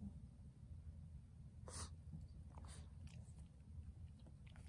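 Shih Tzu snuffling with its nose to the carpet: four or five short, soft sniffs over a faint low room hum.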